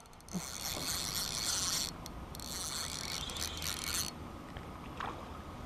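Spinning fishing reel being wound in with a fish on the line, its gears whirring in two runs of winding of nearly two seconds each, with a short pause between.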